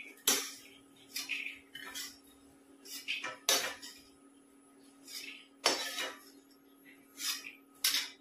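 Long metal spatula scraping and clinking against a steel kadhai as fried peanuts are scooped out of the oil, in about eight irregular strokes. A steady low hum runs underneath.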